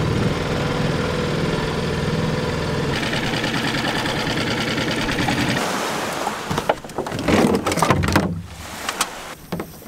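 Small outboard motor on an inflatable dinghy running steadily under way. About halfway through it gives way to a few seconds of irregular knocks and clunks as plastic water jugs are handled.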